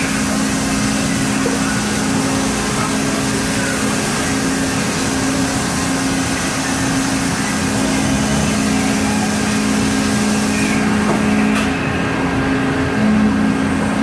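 Mori Seiki ZT-1000Y CNC turning center running through its cycle, its turrets moving between stills: a steady machine hum over an even hiss, with a few faint rising and falling whines and a single click near the end.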